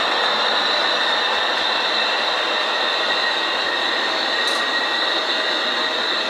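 Model railway train running on the layout out of sight: a steady whirr from its electric motor and wheels on the track, with a continuous high whine.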